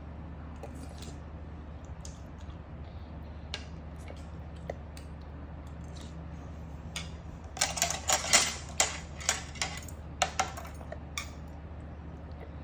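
Tableware clattering during a meal: a quick run of sharp clinks and taps starting about seven and a half seconds in and lasting a few seconds, over a steady low hum. A few single ticks come earlier.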